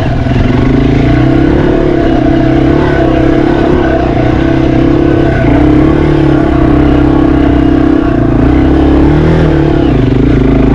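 Yamaha TW200's single-cylinder four-stroke engine running while being ridden off-road, its pitch wavering up and down with the throttle.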